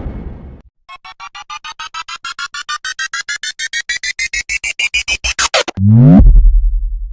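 Synthesized electronic sound effect: a rapid train of beeps that speed up and rise in pitch over about five seconds. It ends in a brief warbling sweep and a low buzz that cuts off abruptly. It opens with the tail end of a whoosh fading out.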